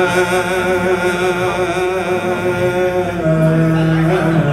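A man chanting an Arabic devotional poem (a Mouride khassida) into a microphone, holding long melismatic notes with a wavering vibrato; the pitch steps down about three seconds in and again near the end.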